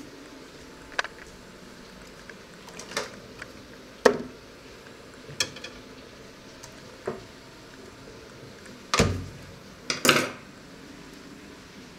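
Kitchen handling clatter: about eight separate knocks and clinks of cookware and utensils, with the loudest, a heavier thud and a clatter, about three-quarters of the way through.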